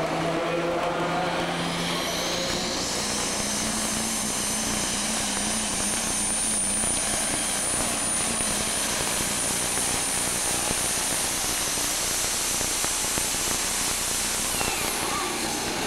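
Super Stock pulling tractor's turbocharged diesel engine at full throttle hauling a weight-transfer sled. A high turbo whine rises over about two seconds, holds steady through the pull, and falls away near the end as the run finishes.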